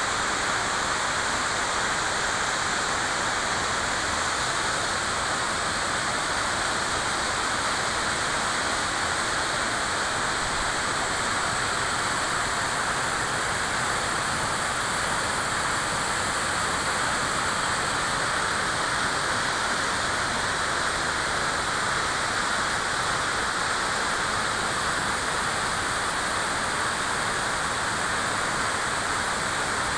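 River water rushing, a steady unbroken wash of noise that does not change.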